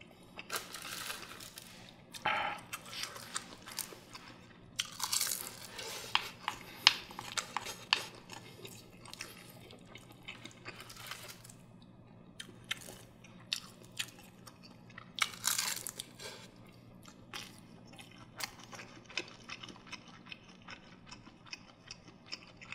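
Close-miked eating: chewing and crunching of steamed egg and seasoned laver, with many short clicks of a spoon against an earthenware pot, in scattered bursts.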